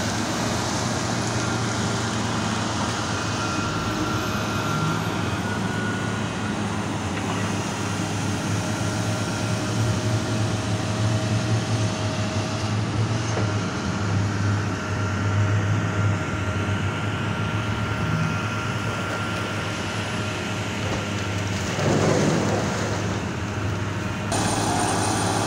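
Heavy mining machinery running: a steady low diesel-type drone from excavators and haul dump trucks, with faint steady whines above it and a brief louder swell near the end.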